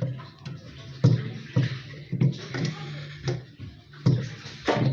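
Irregular knocks and clunks, about seven in under four seconds, as fridge parts are handled and fitted together.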